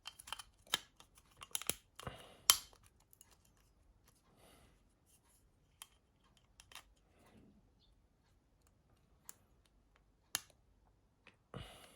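Small sharp clicks and taps of a mobile phone's parts being handled and fitted, as the display's flex cable is clipped into its connector. The clicks come singly and irregularly, with the loudest about two and a half seconds in and a few soft rustles between.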